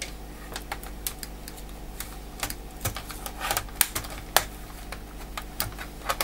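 Irregular light plastic clicks and taps from an HP g7 laptop's keyboard and top case as a thin tool pries along the keyboard's top edge and a hand presses on the keys. The clicks come scattered, a few louder ones near the middle.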